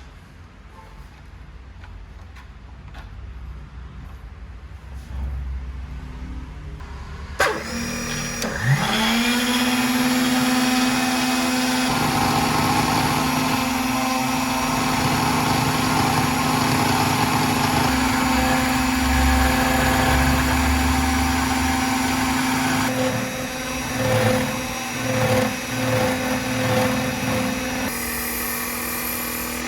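Small electric motor of a home-made miniature power tool starting about seven seconds in, spinning up with a rising whine to a steady hum. It runs steadily, with a rougher, wavering sound of the tool working in the later part.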